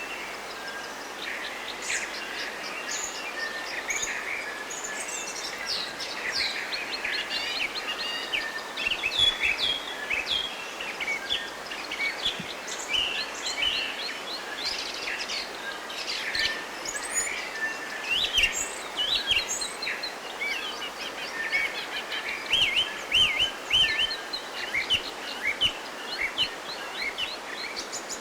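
Forest birds singing and chirping in a busy chorus of many short, quick calls from several birds at once, over a steady background hiss. The calls grow thickest from about a third of the way in until near the end.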